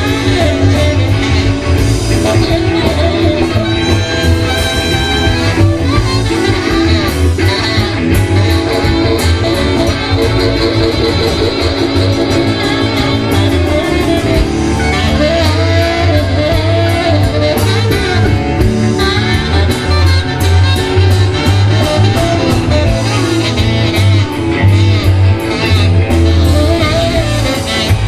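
Live blues-rock band jamming with a horn section: saxophone, trumpet and trombone over electric bass, guitar and drums, with a steady driving bass line. Near the end the trumpet and trombone come in alongside the saxophone.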